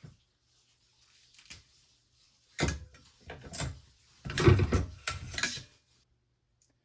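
Handling noise from rifle-cleaning work: a few short knocks and clattering bumps, the loudest cluster coming about four to five and a half seconds in.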